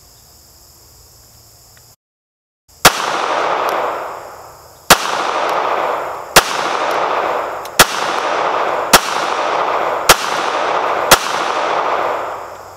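Smith & Wesson Bodyguard .380 pocket pistol fired seven times at a steady pace, about one to two seconds between shots, the first shot about three seconds in.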